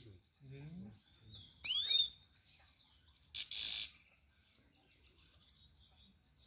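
Caged grey-headed goldfinch calling: soft high twittering, with a burst of quick sweeping notes about two seconds in and a loud, harsh call about three and a half seconds in.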